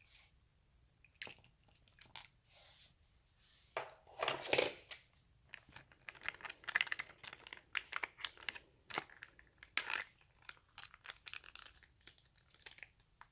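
Slime-making materials being handled: a run of crinkling, crackling and tearing noises with scattered sharp clicks, loudest about four seconds in.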